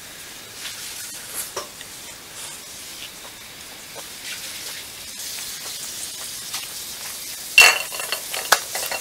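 Close-up chewing of a big mouthful of noodles and clam meat, with wet mouth noises and faint clicks heard through a clip-on microphone. A louder burst of rustling and knocks comes near the end.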